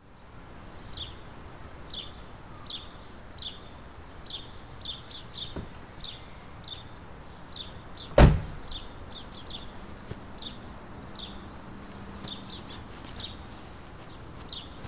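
Outdoor background with a small bird chirping over and over, each chirp a short falling note about every half second to a second. A single heavy thump about eight seconds in is the loudest sound. Near the end come brushing steps in dry grass.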